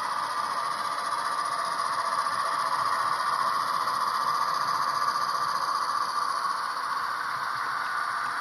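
Model train running along the track: a steady rolling rattle of the wagons' wheels on the rails and the locomotive's motor, swelling a little in the middle.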